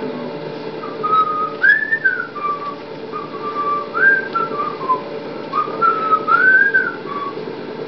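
A person whistling a tune: a single clear melodic line of gliding, rising-and-falling notes in short phrases.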